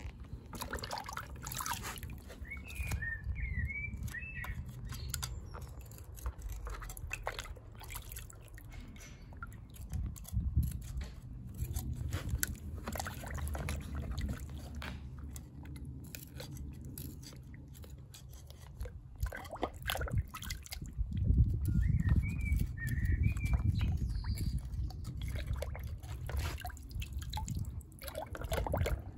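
A screwdriver scraping and clicking against plaster packed inside a cast aluminium skull, then water splashing and dripping in a bucket as the plaster is worked out under water.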